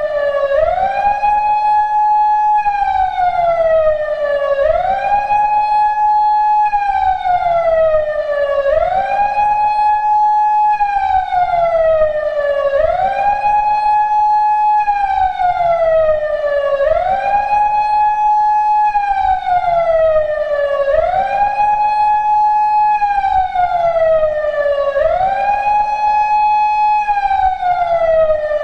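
PATLITE SAP-50 electronic siren amplifier sounding a continuous wail. Each cycle sweeps quickly up in pitch, holds briefly at the top, then slides back down, repeating about every two seconds.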